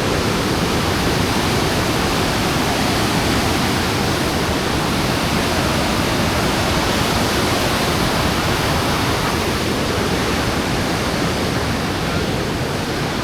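Steady roar of a waterfall, its falling water making a constant, even rush.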